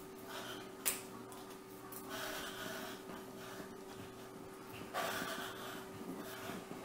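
Pen scratching softly on paper as a list is written, with quiet breaths, a single click about a second in, and a faint steady hum underneath.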